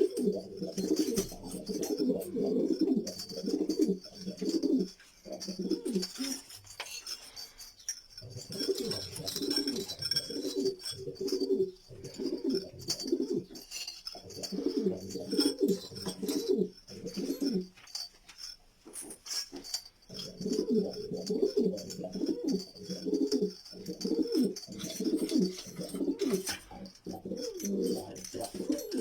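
Domestic pigeons cooing, several birds' rolling coos overlapping in long bouts with two short lulls.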